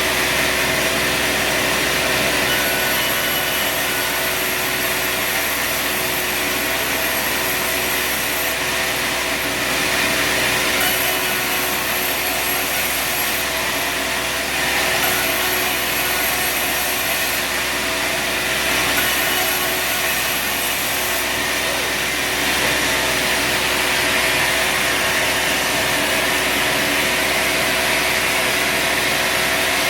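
Sawmill running steadily, its engine holding a constant note while the blade cuts through a log.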